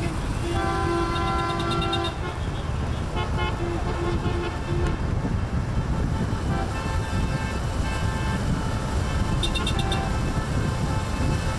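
Car horns honking over the low rumble of passing car engines: a held blast early on, then a quick run of about five short toots, with more honks later.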